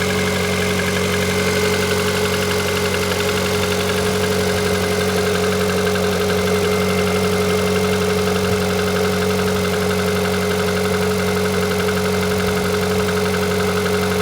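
Car engine idling steadily with a fast, even knocking tick over the running: an extraneous knock that has appeared in the engine at around 160,000 km.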